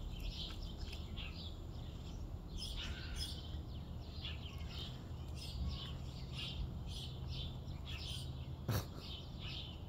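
Small birds chirping over and over, short high chirps about two or three a second, over a low steady rumble, with one sharp click near the end.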